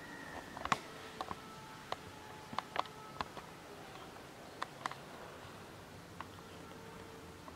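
Faint, irregular light clicks and ticks, about ten spread over several seconds, over a low room hiss, with a few faint held tones in the background.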